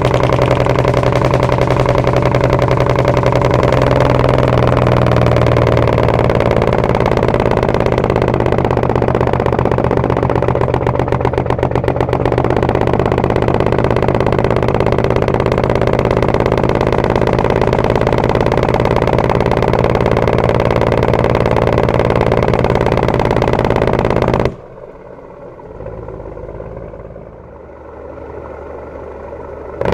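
Cummins 855 diesel of a 1952 Kenworth CD521 barking through its dual 7-inch pipes under the Jacobs engine brake, a loud rapid staccato of exhaust pulses. About 24 seconds in it drops suddenly to a much quieter engine sound for some five seconds, then comes back loud at the very end.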